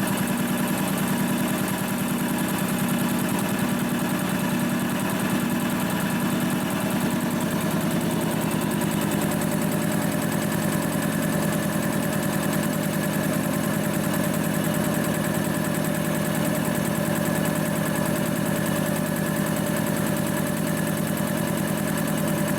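Rebuilt DeVilbiss DevAir 445 two-stage air compressor pump running steadily with a fast, even chugging pulse. It is building tank pressure after its piston rebuild.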